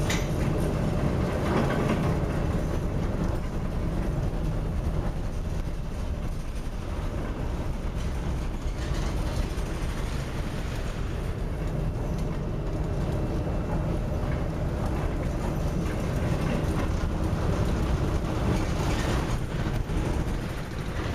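Steady low rumble of a ship labouring in heavy seas, with the noise of wind and water. Louder rushes come near the start, in the middle and near the end.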